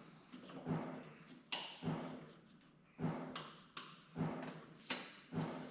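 Repeated short metallic knocks and clicks, about eight of them at irregular half-second to one-second intervals, each with a brief low ring, as a hand tool turns the clamp screw of an all-metal headset hanger to tighten it onto a roll bar.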